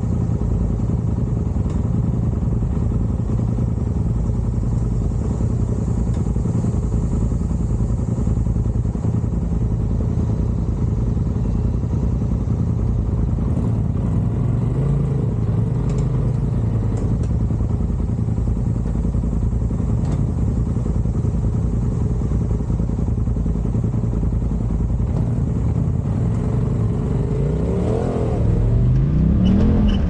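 Side-by-side UTV engine running steadily on a rough off-road trail, with a few faint knocks. The revs climb quickly near the end.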